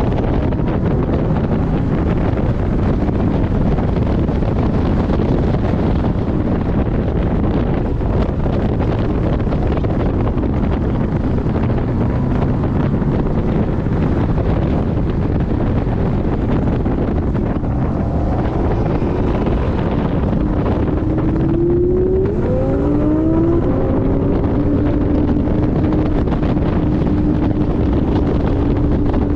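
Porsche 718 Boxster GTS engine running hard at track speed under heavy wind and road noise. About three quarters of the way through the engine note climbs steeply through the revs, then holds a steady pitch.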